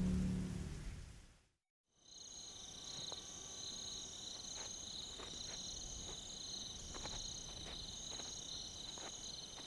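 Background music fading out during the first second and a half, then after a short break a steady high trilling of night-calling insects, with a few faint ticks.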